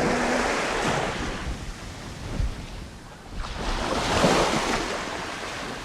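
Sea waves washing in, with two swells of surf about three and a half seconds apart, the second the louder, and wind rumbling on the microphone.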